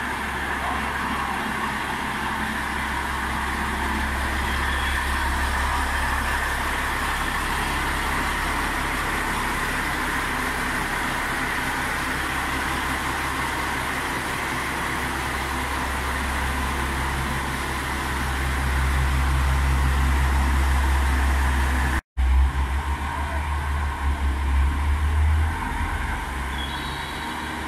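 Diesel engines of a KiHa 40-series railcar train running, a steady low drone that grows louder and more uneven as the train pulls away. There is a brief dropout about 22 seconds in.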